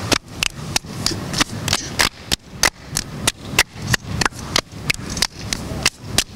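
Hands clapping in a steady rhythm, about three claps a second: a hand-clapping game, each player's palms striking together and against a partner's palms.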